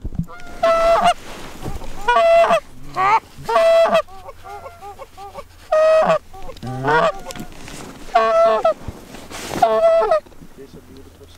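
Goose honks, loud and repeated every one to two seconds, with quieter clucks between them; the calling stops about ten seconds in.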